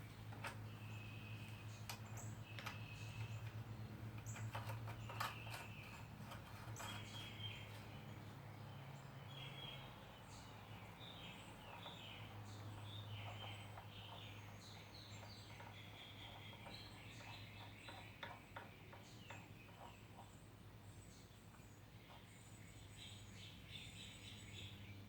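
Small birds chirping faintly in short repeated calls, over a steady low hum, with scattered light clicks and knocks.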